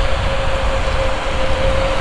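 Versatile 365 tractor running steadily under load during tillage: a deep engine rumble with a steady whine on top, growing slightly louder as it approaches.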